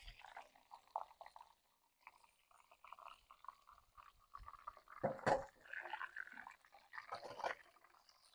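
Hot frying oil sizzling and crackling in a pan as breaded chicken Kievs are lifted out, with a sharper clatter about five seconds in.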